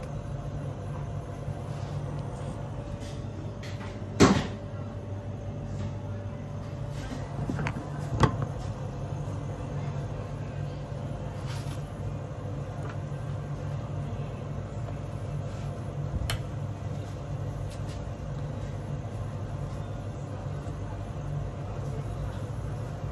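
Steady machine hum of a commercial kitchen, with a sharp knock about four seconds in, another about eight seconds in and a fainter tap later.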